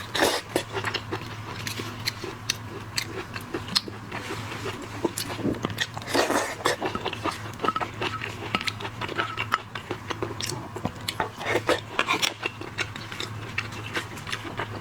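Close-miked eating: biting and chewing, with many short crisp clicks and crunches and a few louder stretches.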